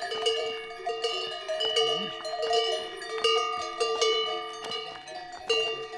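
Bells hung on pack yaks clanking and ringing irregularly as the animals walk past, several bells of different pitch struck again and again with each step.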